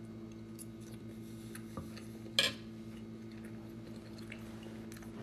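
A metal spoon set down on a ceramic plate, one sharp clink about two and a half seconds in, with a fainter tap a little before it. A steady low hum runs underneath.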